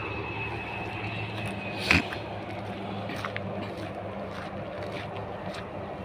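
A steady low motor hum under a haze of noise, with one sharp click about two seconds in and a few faint ticks after it.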